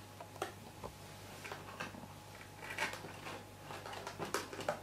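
Card being handled and pressed together: soft rustles and small clicks, a little louder about three seconds in and again near the end.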